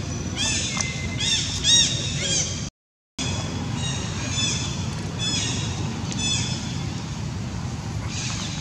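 Baby pig-tailed macaque crying in bouts of short, high squeals, each rising and falling in pitch. The sound cuts out for about half a second about three seconds in.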